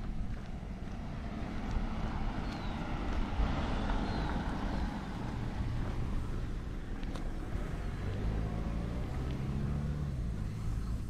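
A car passing on the street, its noise swelling to a peak about four seconds in and then easing off, with a low engine hum later on.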